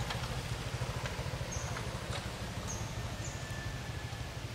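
A steady low throb, like a small motor running in the background, with short high chirps every second or so and a few faint clicks.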